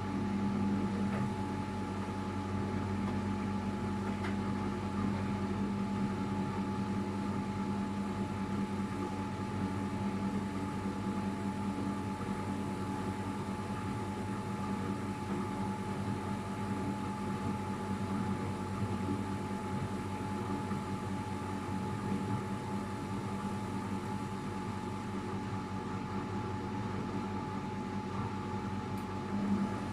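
Luxor WM 1042 washing machine running with a steady motor hum.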